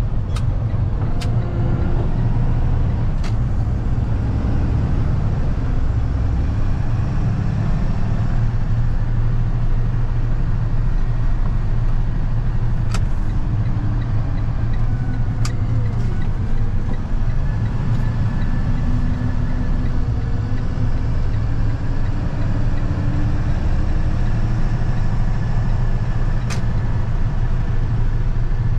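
Box truck on the move, heard from inside the cab: a steady low rumble of engine and road noise, with a few faint sharp clicks now and then.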